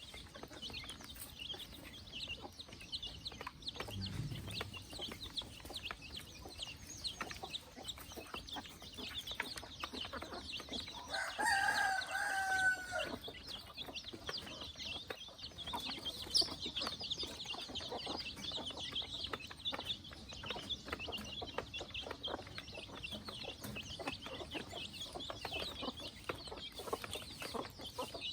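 Chickens clucking, and a rooster crows once about eleven seconds in, a call lasting about a second and a half. A steady, dense high-pitched chirping runs underneath throughout.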